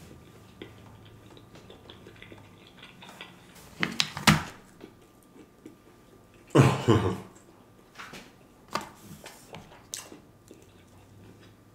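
Close-miked eating sounds: pizza crust being chewed, with scattered clicks and knocks. The loudest are a double knock about four seconds in and a louder mouth sound at about seven seconds.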